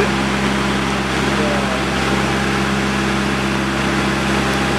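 Boatyard travel lift's engine running steadily at an even idle-like speed.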